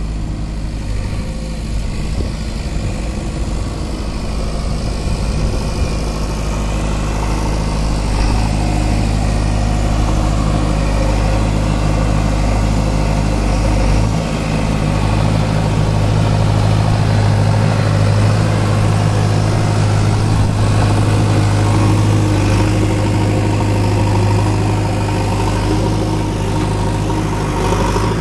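JCB 3DX backhoe loader's diesel engine running steadily as it works the backhoe digging and dumping sand. It gets a little louder about a third of the way in and again past the middle.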